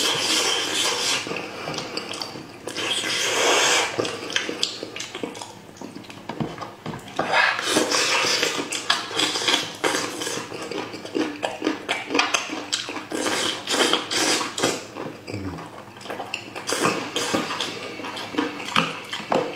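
Wet squelching and tearing as a braised spiced sheep's head is pulled apart by hand, mixed with close-up chewing and lip-smacking, in irregular sticky clicks and bursts.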